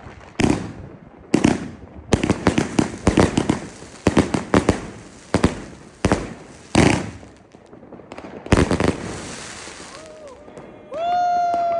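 Firecrackers and fireworks going off: loud single bangs and rapid crackling runs of bangs. Near the end a held pitched tone sounds, briefly at first and then longer.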